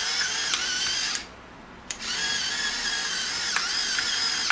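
Electric pepper mill grinding mixed peppercorns: its small motor whines, dipping in pitch now and then. It stops about a second in and starts again about a second later. The peppercorns are rather coarse for the mill, but it still manages.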